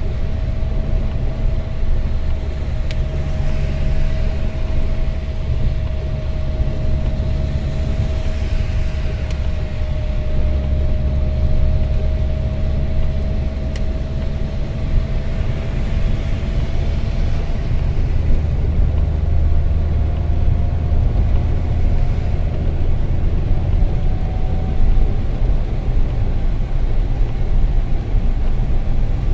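Road noise inside a car driving on a rain-soaked highway: a steady low rumble with the hiss of tyres on the wet road, and a faint whine that drifts slowly in pitch.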